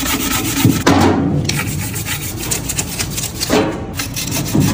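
A stiff brush scrubbing the metal case of a Detroit Series 60 DDEC IV engine ECM, in quick repeated back-and-forth strokes.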